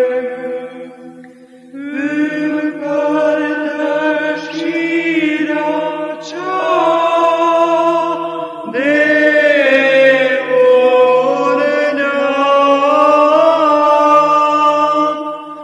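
Male monastic choir singing Romanian Byzantine (psaltic) chant in the fifth tone: a melody line over a steady held low drone (ison). The melody thins out briefly about a second in while the drone holds, then the singing resumes with a new phrase entering around the middle.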